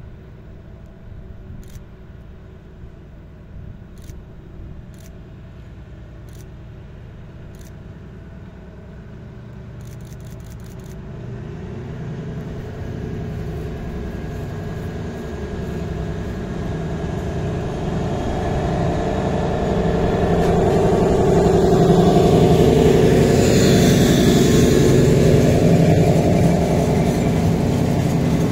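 Narrow-gauge diesel locomotive pulling away with its train, its engine growing steadily louder as it approaches. Near the end it passes close by at full loudness, with the cars rolling past behind it.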